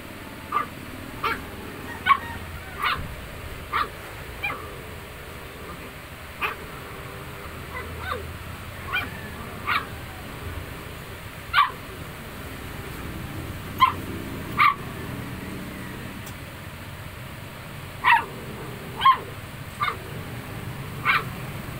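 Puppies yipping and whining in short, high calls, about seventeen of them at irregular intervals, as two pups squabble over food.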